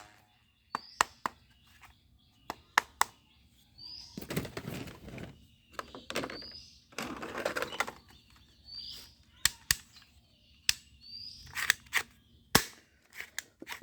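Sharp plastic clicks and clacks of toy guns being handled and worked, a dozen or so spread through, with two stretches of rustling handling noise about four and seven seconds in.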